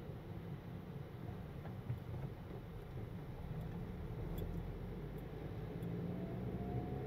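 Car on the move: a steady low rumble of engine and road noise, with a faint rising whine near the end.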